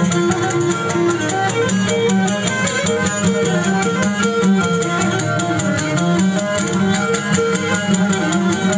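Traditional Cretan dance music played on string instruments: a running melody over a steady, even dance beat.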